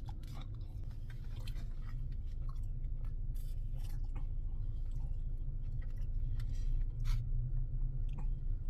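A man chewing mouthfuls of chow mein noodles and saucy Panda Express chicken and shrimp, with scattered wet smacks and clicks of the mouth. A steady low hum runs underneath.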